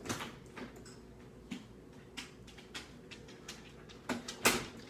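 Scattered light clicks and taps, with one louder sharp knock about four and a half seconds in: household movement and a door as a dog is let into the house.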